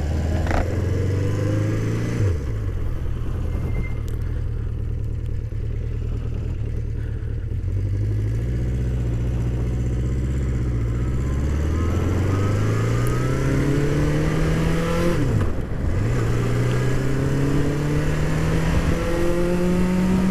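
1981 Honda CB650's air-cooled inline-four engine pulling away and accelerating. Its pitch climbs and drops sharply at two upshifts, about two seconds in and again about three-quarters of the way through.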